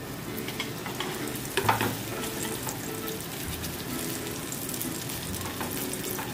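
Mutton keema paratha sizzling steadily in oil on a hot tawa as its underside fries. A short knock sounds about a second and a half in.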